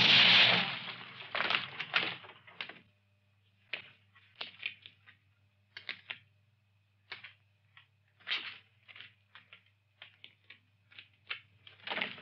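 A loud bang that dies away over about two seconds, then sparse, sharp clicks and taps of dubbed film footsteps, one or two at a time about every second, over a faint steady hum.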